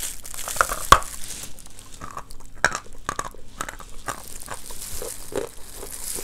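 Biting and crunching a lump of edible white chalk: a run of sharp crunches and crackles, the loudest about a second in.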